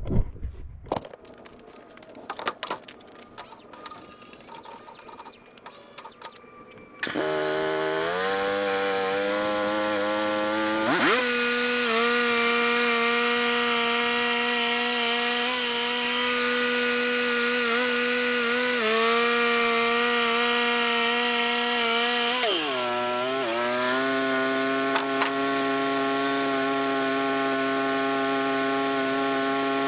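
Wood-Mizer LT35 portable bandsaw mill starting suddenly about seven seconds in and running steadily as its band blade cuts through a yellow pine log; the engine's pitch dips briefly a few times as the cut loads it. Before that, quieter scattered handling sounds.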